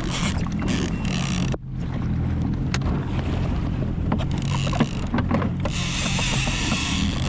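Jet ski engine idling with a steady low hum, under wind buffeting the microphone, with a few light knocks of gear being handled; the wind hiss grows stronger near the end.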